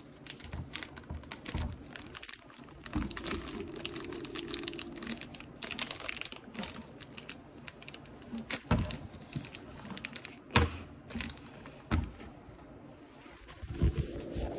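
A new steel tie rod end and its nuts handled at a workbench: scattered metal clicks and knocks with a plastic bag crinkling, as a jam nut is run onto the threads. A few sharper knocks stand out in the second half.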